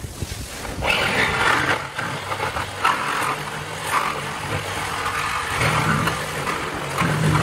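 Handheld power tool run in several short bursts, one after another, over a steady low hum.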